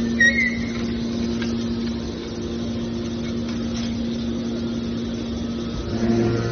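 Steady hum of a small hydraulic aluminium can baler's motor and pump running, with a brief high squeak at the very start.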